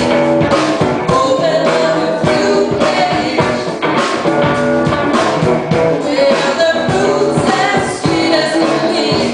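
Live rock band playing with a singer's voice over it and a steady drum beat.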